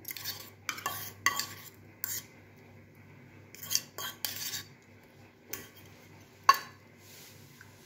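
Metal spoon scraping and clinking against a small stainless steel bowl while scooping cream out of it. The clinks come at irregular moments, the sharpest about six and a half seconds in.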